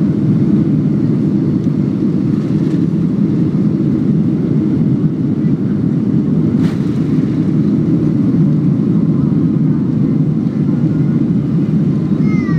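Steady low rumble of a Boeing 747-400's engines and airframe, heard inside the cabin while the jet moves on the ground.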